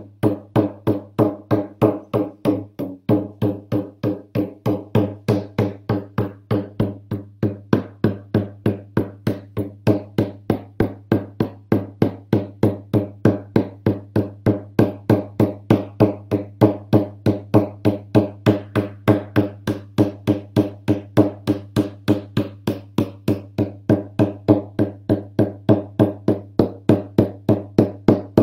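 Hand-held frame drum beaten steadily with a beater, about three even beats a second, each stroke leaving a low, booming resonance.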